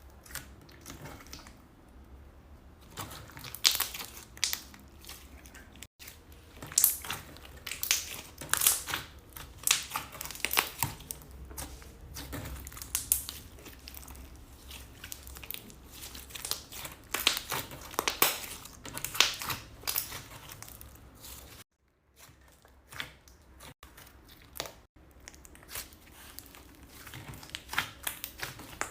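Slime being squished and worked by hand: clusters of crackling, popping and crinkling. About three quarters of the way through it breaks off briefly, then goes on more softly.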